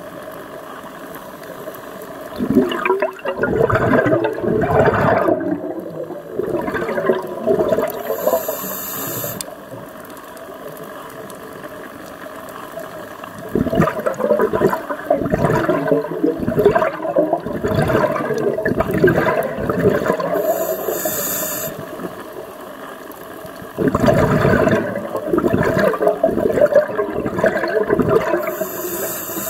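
Scuba diver breathing through a regulator underwater: three long rushes of exhaled bubbles, each followed by a short, high hiss of inhaling through the regulator.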